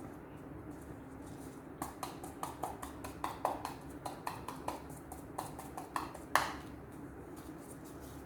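Quick run of light taps, a little uneven at about three to four a second, ending in one louder knock about six seconds in: a container being tapped to shake cinnamon powder into a pot of jam mixture. A steady low hum runs underneath.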